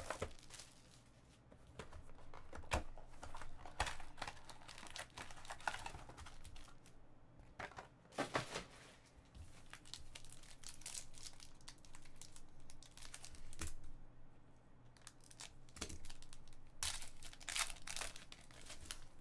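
Foil wrappers of 2015-16 Panini Totally Certified basketball card packs being torn open and crinkled by hand, in irregular rustling bursts with scattered sharp clicks as the cards are handled.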